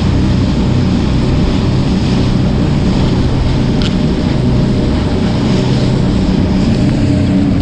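Fishing boat's engine running steadily under way at speed, with the rush of the wake and wind on the microphone. One short sharp click about four seconds in.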